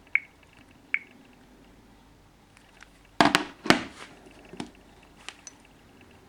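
A series of clicks and knocks: two short ringing clicks in the first second, two loud knocks about three to four seconds in, then a few lighter taps.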